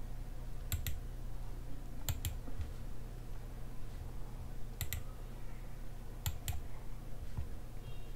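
Computer mouse clicks, four of them a second or two apart, each a quick double tick of button press and release, over a steady low hum.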